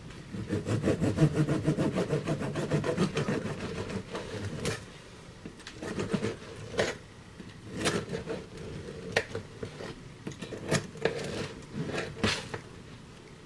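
Knife sawing through a loaf of freshly baked Italian bread: a quick run of rasping strokes for the first few seconds, then scattered single scrapes and knocks.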